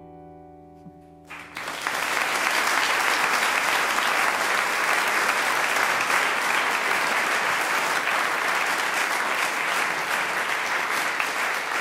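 The last piano chord dies away, then audience applause breaks out about a second in and carries on steadily.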